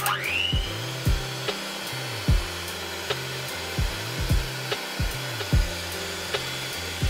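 Cuisinart electric hand mixer switched on, its motor whining up in pitch and then running steadily as the beaters whisk warmed eggs and sugar for a sponge batter. Background music with a steady beat plays underneath.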